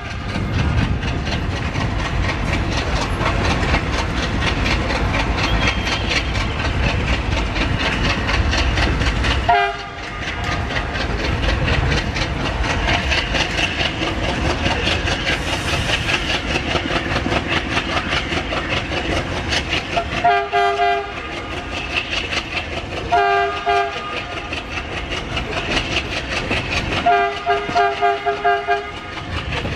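Diesel locomotive horns sounding a brief blast about ten seconds in, short blasts around twenty seconds, and a run of quick toots near the end, over steady train running noise and diesel engine rumble. The rumble is heaviest for the first ten seconds, then drops off sharply.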